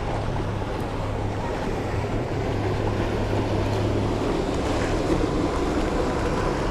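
Steady wash of waves and wind on the shore, with a low steady hum underneath.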